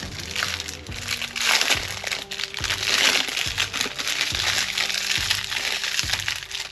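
Brittle, crinkly clear plastic packaging being crinkled and pulled open by hand, loudest about two to three seconds in. Background music with a steady beat runs underneath.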